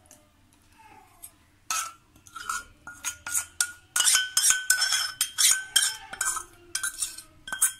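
Metal spoon scraping and clinking against stainless-steel bowls while spooning out a spiced oil marinade, the strikes ringing briefly. The clinks start about a second and a half in and come thick and fast from about halfway on.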